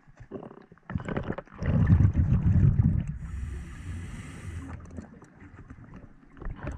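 Scuba diver breathing through a regulator underwater: a loud rumble of exhaled bubbles lasting about a second and a half, then a high inhalation hiss lasting about a second and a half, with scattered clicks and knocks around them.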